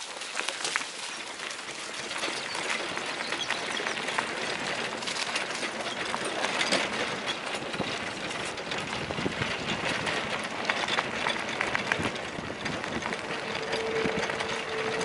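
Wheeled dog-sled training rig rolling along a dirt-and-gravel path behind a running husky team: a steady rolling rumble with constant small clicks and rattles from the wheels and frame. Near the end a thin steady whine sets in and holds.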